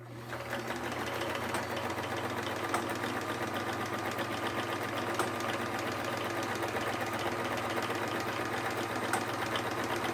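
Vintage Sears Kenmore sewing machine starting up and running steadily, stitching with a fast, even clatter of the needle mechanism.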